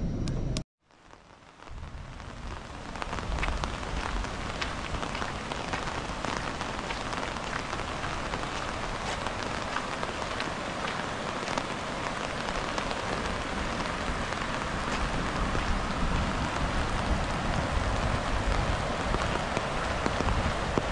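Rain falling steadily, with many individual drops ticking close by. It comes in after a short silent gap near the start.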